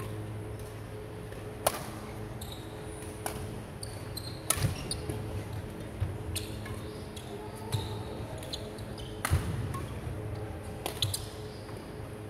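Badminton rackets striking a shuttlecock in a doubles rally, a sharp crack every second or two, mixed with short high squeaks of court shoes on the wooden floor. A steady low hum runs underneath.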